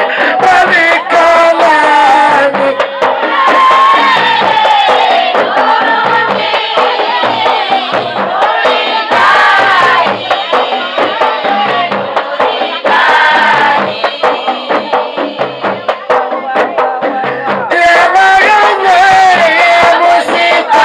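Comorian maoulida devotional chant: a man's voice sung into a microphone leads, with a group of voices and rhythmic percussion keeping time. The singing is continuous, bending up and down in pitch.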